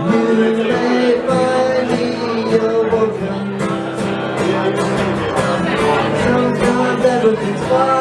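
A male singer performing live, accompanying himself on a strummed acoustic guitar.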